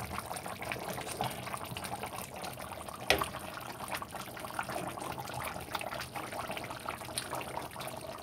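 Pot of brown stew fish bubbling at a rolling boil, a steady crackle of many small pops and ticks. A single sharp knock about three seconds in.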